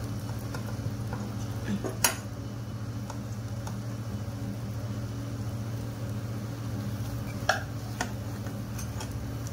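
Steel spoons scraping and tapping against a non-stick pan as an omelette is pushed and lifted while it fries, over a steady low hum. Sharp clinks about two seconds in and twice near the end.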